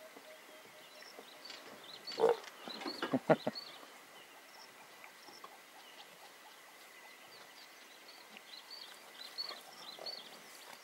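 Young lions growling and snarling in a play fight: a short snarl about two seconds in, then a quick run of growls just after three seconds. Birds chirp and an insect drones steadily underneath.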